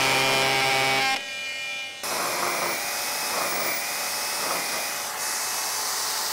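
A cordless oscillating multi-tool buzzing as it cuts away fiberglass. About two seconds in, this gives way to a narrow belt file sander running steadily against the fiberglass, a hiss with a thin high whine.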